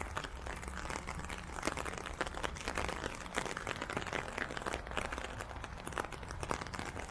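Steady rain, its drops making a dense, irregular crackle close to the microphone, over a low steady rumble.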